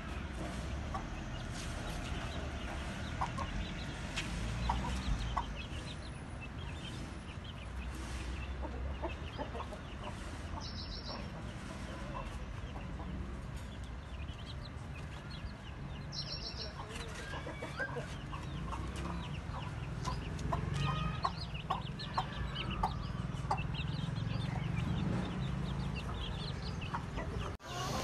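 A flock of young Aseel chickens clucking and peeping, with many short calls scattered throughout over a steady low background rumble.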